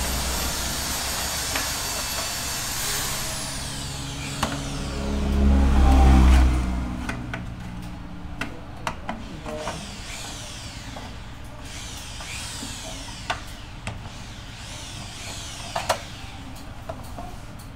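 Sheet-metal cover of a CCTV DVR recorder being slid shut and the unit handled: scraping and a string of metal clicks and light knocks. A low rumble swells and fades about five to seven seconds in.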